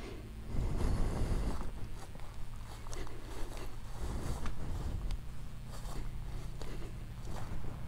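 Walking footsteps on grass and dry mulch, irregular soft scrapes and crunches, over a faint steady low hum.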